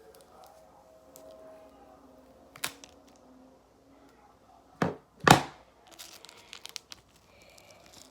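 A plastic screen protector being peeled off a phone's screen: small crackles and clicks, with two loud sharp rips about five seconds in.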